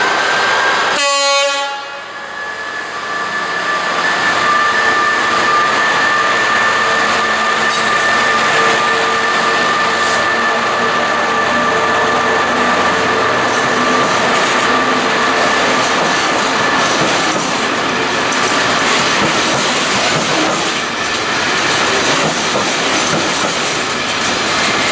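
A train passing close by: a loud, steady running noise with two sustained high whining tones over it.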